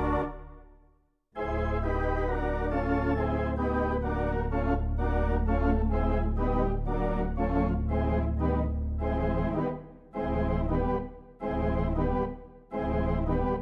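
Organ music: a held chord dies away, then after about a second of quiet a fast run of notes over a held bass, breaking near the end into short chords with gaps between them.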